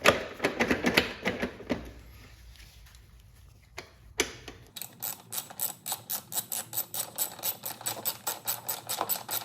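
A few metallic knocks and clatters of parts being handled. Then a ratchet wrench clicks quickly and evenly, about six clicks a second, as a wheel fastener on the mower is turned.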